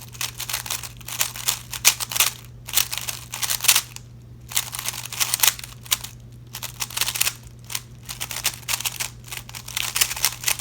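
A Rubik's Cube speedcube being turned fast in the hands: quick clusters of plastic clicking and clacking with short pauses between them, over a steady low hum.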